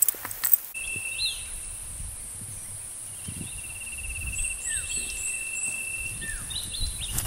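Rural outdoor ambience: insects trilling steadily, one as a high hiss and one as a fast buzzing trill, with scattered bird chirps over a low wind rumble. In the first second there are a few sharp clicks from the camera being handled, and near the end a single footstep.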